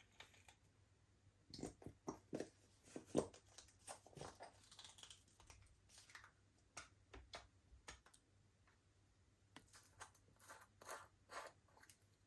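Slime being worked by hand: a run of irregular sticky crackles and pops, in two clusters with a quieter stretch between.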